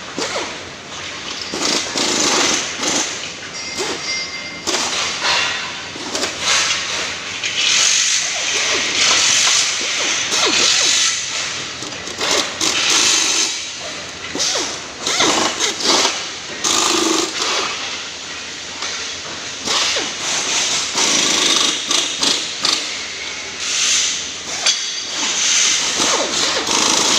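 Workshop noise from aluminium scaffolding frame assembly: repeated hissing bursts of a power tool lasting a second or two each, mixed with clicks, knocks and metal clatter.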